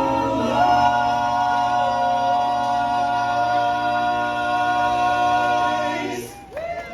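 Barbershop quartet singing a cappella in close harmony, holding one long chord for about six seconds before cutting off near the end.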